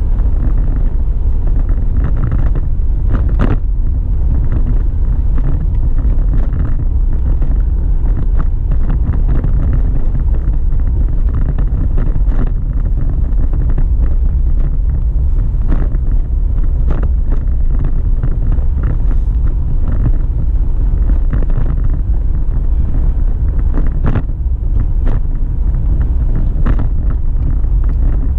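A car driving on a paved road, heard from inside the cabin: a steady low rumble of road and engine noise, broken by scattered short knocks and rattles.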